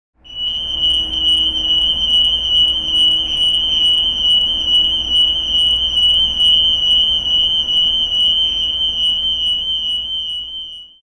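The sound installation's speakers emit a loud, steady, high-pitched electronic tone over a hiss and low hum. It starts a moment in, holds for about ten seconds and cuts off suddenly near the end.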